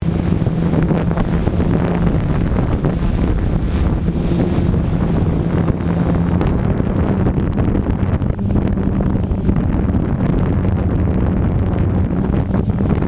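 Model aircraft's motor and propeller running steadily with a low hum, heard from the onboard camera under heavy wind rush on its microphone as the aircraft climbs.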